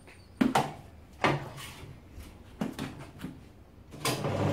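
Four or five sharp knocks and clatters from tire irons working a tubed tyre's bead off a motorcycle wheel rim. About four seconds in, a steady machine hum starts up.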